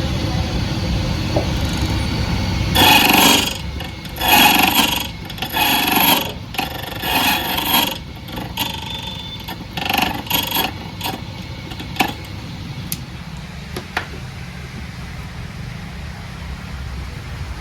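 Key duplicating machine's motor running while its cutter grinds into a metal key blank, in a series of short grating passes from about three seconds in until about eleven seconds. Two sharp clicks follow.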